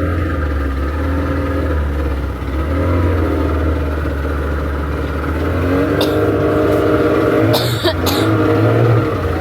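Vehicle engine running, its pitch rising and falling as it changes speed, with brief clattering noises about six and eight seconds in.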